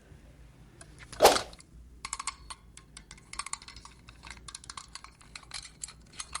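Small plastic toy pieces being handled, with one louder knock about a second in, then a run of quick, irregular clicks and taps.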